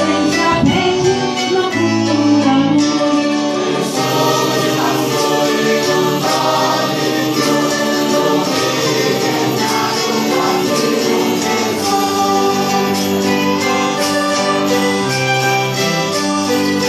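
Mixed choir singing a traditional Christmas song, accompanied by plucked string instruments and keyboard.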